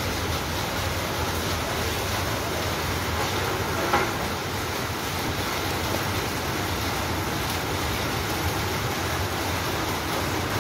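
Steady rushing workshop background noise, with one light knock about four seconds in.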